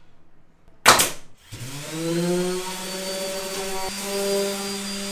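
A sharp, loud burst about a second in, then a handheld electric power tool's motor spins up and runs steadily.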